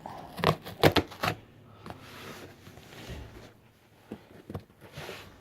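Screwdriver prying and scraping at a box's packaging: a quick run of sharp clicks and scrapes in the first second and a half, then softer rustling and a few more clicks near the end.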